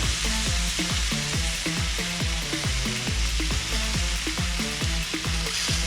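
Background music with a fast, steady beat, about four thumps a second, over a steady hiss of chicken sizzling on the smoker grate.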